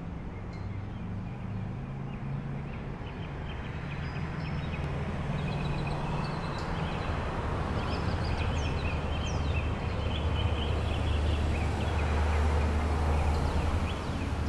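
A flock of small birds chirping, with many short high calls through the middle of the stretch, over a low steady hum that grows gradually louder.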